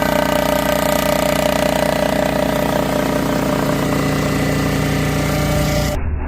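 A cylinder head surfacer runs steadily with a whine of several steady tones as its cutter makes the final pass across a Subaru 2.5 SOHC aluminium head. About six seconds in, it gives way abruptly to a duller running sound.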